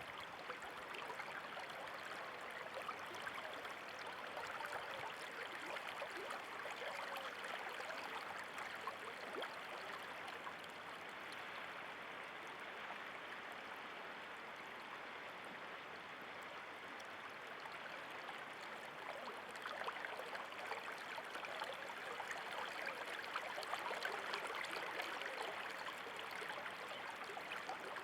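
Running water flowing steadily, a little louder in the last third.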